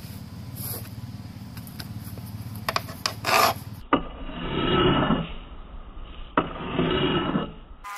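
A flat hand file drawn in two long strokes along the steel of a clamped kukri blade. Each stroke starts with a sharp click and lasts over a second.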